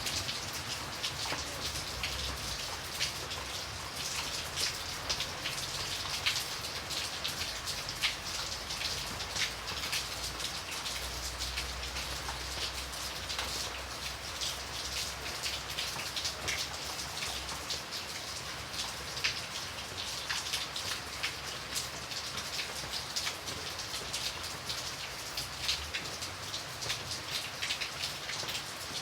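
Steady rain: a continuous hiss with many separate drops heard as sharp ticks.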